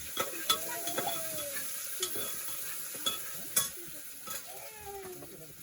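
Food sizzling and frying in a pan while it is stirred, with a steady hiss and several sharp clicks of a metal spoon or ladle against the pan.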